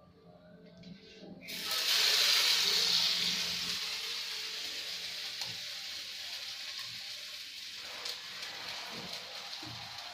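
Batter-coated potato and banana pieces frying in hot oil in a pan. A sudden loud sizzle starts about a second and a half in and slowly eases to a steady sizzle.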